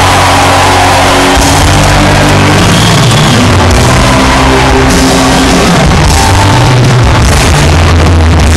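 Loud live rock music over a stadium PA with the crowd shouting, recorded so hot that it is badly overloaded and distorted; steady heavy bass notes run underneath.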